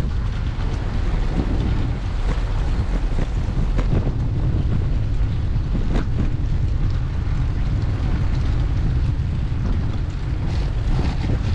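Steady low rumble of wind buffeting a bicycle-mounted GoPro's microphone as the bike rides along a rain-wet street, with a few light ticks, one about six seconds in.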